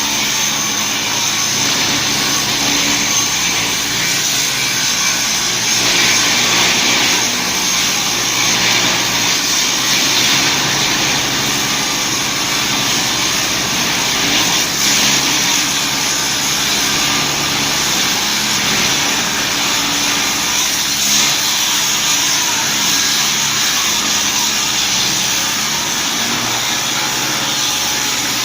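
Angle grinder's electric motor running continuously at high speed as it drives a makeshift ride: a steady high whine over a hissing rush, swelling a little now and then.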